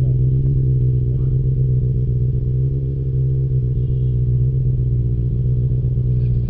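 Motorcycle engines idling steadily at a standstill, an even low engine note that holds without revving.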